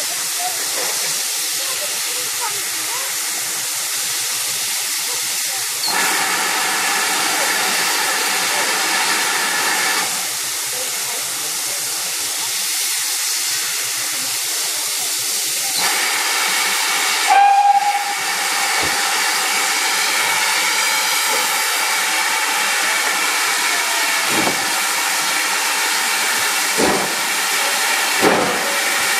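Steam locomotive standing with steam hissing, louder and pitched from about six to ten seconds and again from about sixteen seconds, with one short whistle toot about seventeen seconds in. Near the end come the first few slow exhaust chuffs as it starts to pull away.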